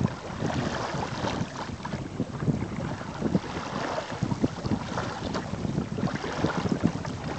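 Choppy water rushing and slapping irregularly against the hull of a sailing kayak under way, with wind buffeting the microphone.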